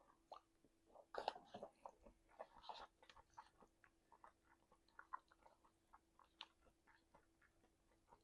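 Quiet close-miked chewing of food: soft wet mouth clicks and smacks, busiest in the first few seconds, then sparser.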